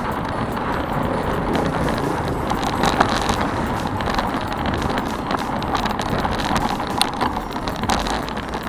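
Bicycle riding along a wet road: a steady rush of wind and tyre noise, with sharp clicks and rattles from the bike now and then.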